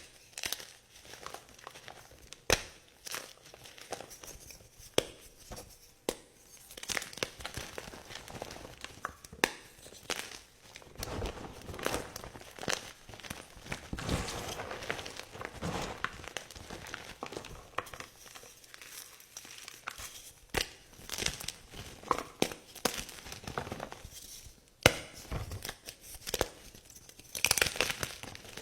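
Blocks of gym chalk being crushed: dry crunching and crumbling with sharp, scattered snaps, and a denser stretch of steady crumbling in the middle.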